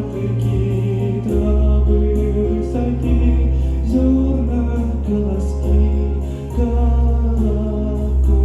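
A song over a backing track: sung notes with sustained accompaniment, a deep bass line and a steady beat.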